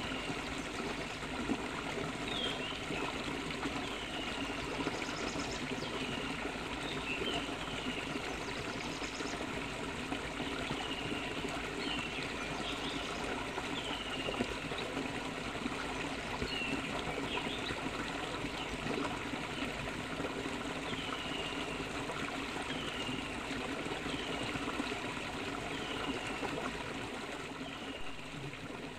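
Steady sizzling of chicken pieces and coconut oil frying on a fire-heated flat stone. A bird gives short falling chirps every second or two.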